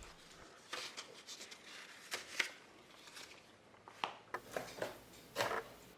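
Faint, scattered rustling and light taps of paper and cardboard being handled as manuals are lifted out of an opened box.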